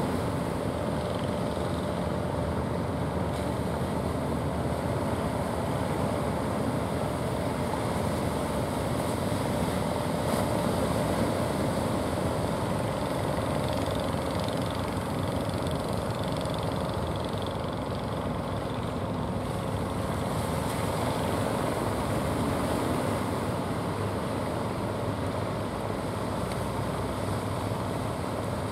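Wooden fishing boats' engines running steadily over breaking surf. The engines' steady hum fades out about two-thirds of the way through.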